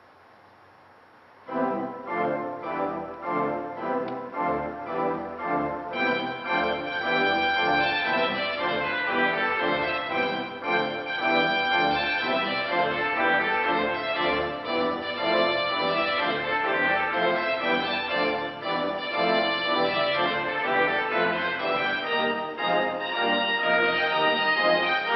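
Organ starts playing a festive processional piece after a short silence, about a second and a half in. The sound turns brighter and fuller about four seconds later.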